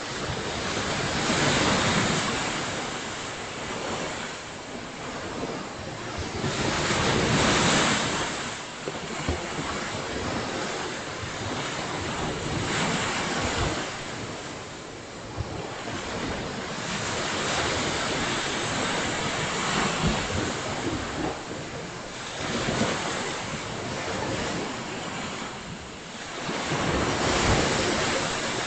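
Ocean surf breaking on a beach, the wash swelling and fading every five to seven seconds, with wind rumbling on the microphone.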